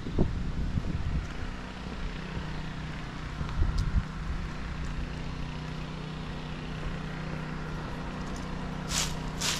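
Outdoor ambience: a steady low hum throughout, with wind buffeting the microphone at the start and again about four seconds in. Two short hissing scrapes come near the end.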